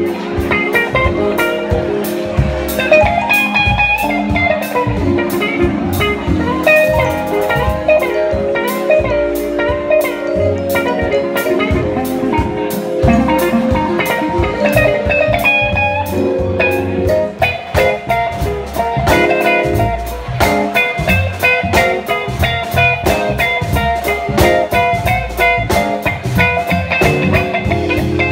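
Live band playing a groovy electric guitar solo, backed by a drum kit and bass guitar, with a bluesy feel.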